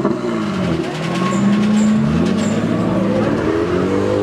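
Car engine revving hard in long swells, its pitch climbing and dropping back about three times, as a car is driven at a street takeover drift session.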